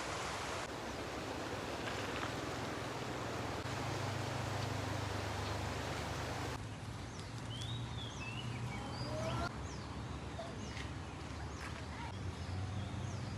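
Outdoor ambience: a steady rushing noise with a low hum, changing abruptly a few times as short clips are joined. From about halfway, small birds chirp repeatedly.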